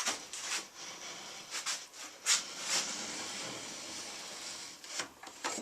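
Steel square sliding against two nails while a pencil in its corner scrapes an arc on plywood: scratchy scraping with several short clicks and taps, then a steadier scrape for a couple of seconds before it stops near the end.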